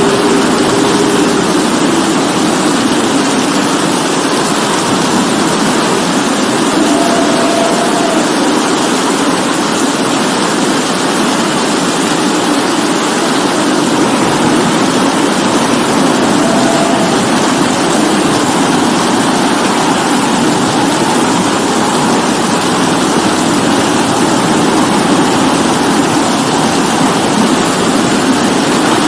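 Steady, heavy rain falling: a continuous even hiss of drops.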